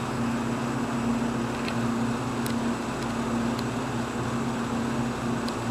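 Steady mechanical hum with a constant low tone, and a few faint light clicks.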